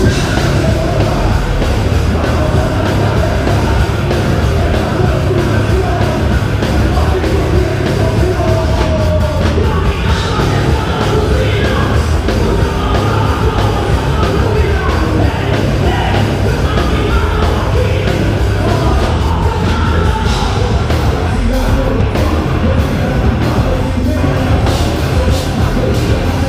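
Live heavy rock band playing a loud, dense instrumental stretch with no lead vocal, part of a soundcheck; the music runs on without a break.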